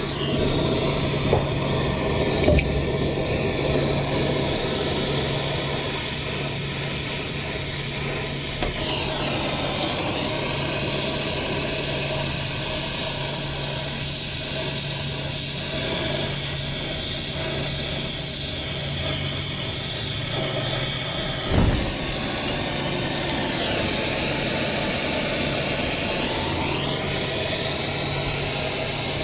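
Steady running machine noise: a low hum under a broad hiss, with a few light knocks near the start and a louder knock about 22 seconds in.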